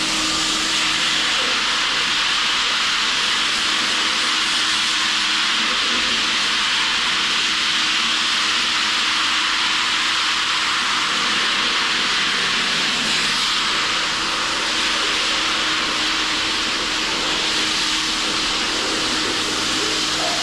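Floor sanding machine running steadily: an even, loud hiss over a low, constant motor hum.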